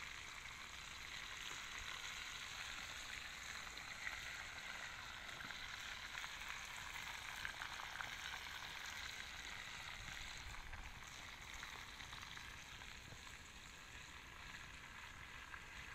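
Pieces of boga fish frying in oil in a pan over a wood campfire: a steady sizzle with a few small pops.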